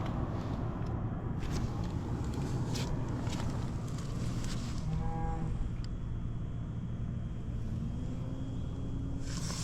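Honda Monkey Z50J's small single-cylinder four-stroke engine, bored up to 88cc, running steadily, which the seller presents as free of abnormal noise. A brief pitched tone sounds about five seconds in.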